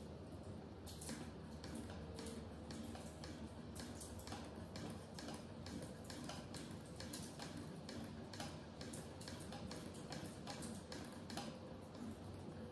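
Willcox & Gibbs hand-crank chain-stitch sewing machine stitching as its hand wheel is turned, the mechanism ticking steadily about three to four times a second.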